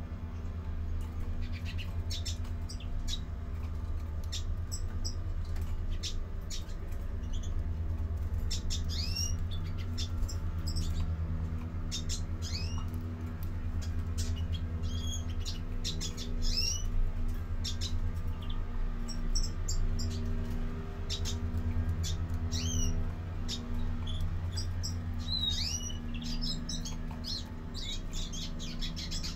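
Caged European greenfinches calling: many short, rising chirps that come more often after the first few seconds, over a steady low hum.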